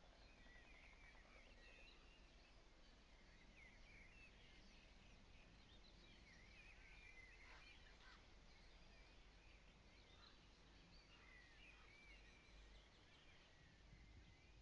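Songbirds chirping faintly in short repeated phrases, over a steady low hum and hiss.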